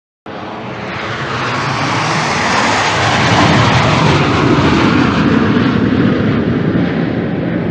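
Canadair CT-114 Tutor jet trainer's single turbojet engine, starting abruptly and building to a loud peak in the middle before easing off toward the end.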